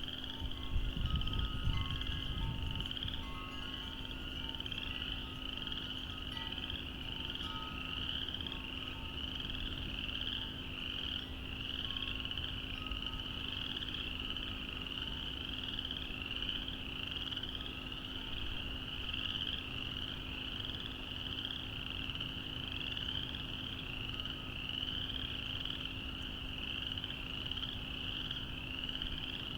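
Dense chorus of small frogs calling in a steady mass of rapid, high-pitched, rising notes. A brief low rumble comes in the first couple of seconds.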